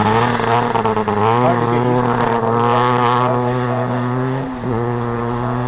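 Kawasaki KX500 motocross bike's single-cylinder two-stroke engine running hard at steady revs. Its pitch steps up about a second in and dips briefly near the end.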